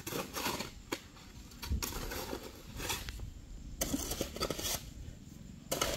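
A small hand tool digging and scraping into wet mud and dirt in irregular strokes, some short crunches and a few longer scrapes, clearing mud from around a stuck car's wheel.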